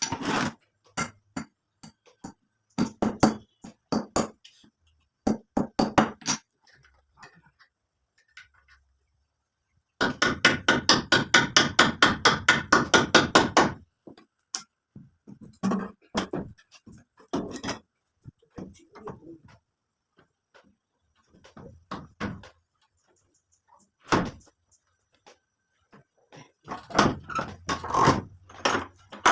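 Hammer blows in short bursts of a few strikes each, with a run of fast, steady blows lasting about four seconds about ten seconds in.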